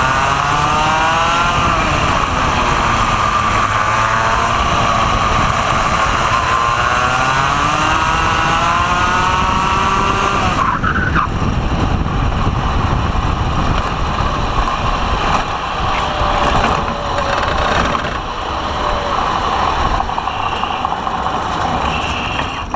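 Kart's Vortex ROK 125cc two-stroke engine revving up and down at low speed, then cutting off abruptly about halfway through. What remains is wind and tyre rumble as the kart coasts in with the engine stopped.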